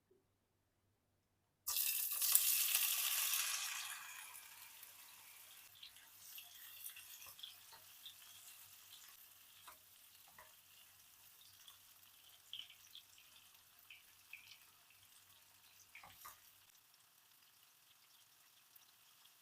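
Ingredients going into hot oil in a pan for a tomato and egg stir fry: a sudden loud sizzle starting about two seconds in, fading after a couple of seconds to a steady quieter frying with small crackles and pops.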